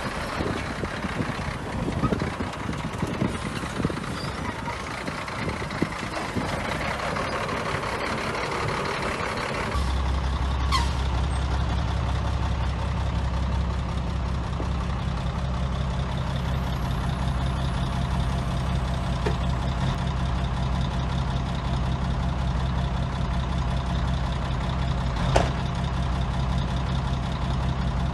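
Heavy diesel construction machinery working, with irregular clattering for the first ten seconds or so. It then changes abruptly to a steady, low diesel engine drone, with a couple of sharp metallic clanks.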